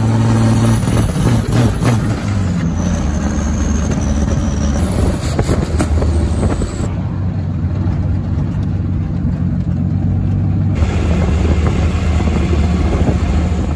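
Turbocharged 4.0-litre inline-six of a Jeep Wrangler running under way, heard from inside the cabin: a steady engine drone that eases off about seven seconds in and picks up again near eleven seconds.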